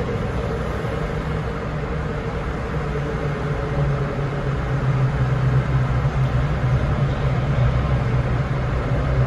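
VW Polo 6R GTI's 1.4-litre twincharged four-cylinder engine running at speed in a road tunnel, heard from inside the cabin as a steady low engine drone over road noise. The drone grows stronger and louder from about three to five seconds in.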